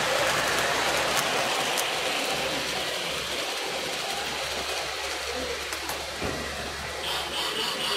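Lionel model freight cars rolling over three-rail track with a mechanical rattle, getting quieter as the train moves away.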